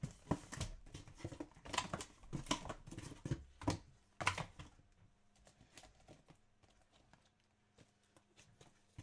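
Cardboard boxes of trading cards being handled: a run of irregular knocks, taps and rustles for about four and a half seconds, then only faint scattered clicks.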